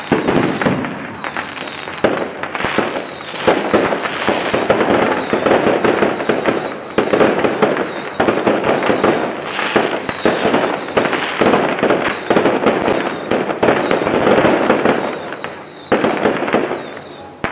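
Fireworks going off close overhead in a dense, unbroken barrage of bangs and crackles, thinning out about sixteen seconds in.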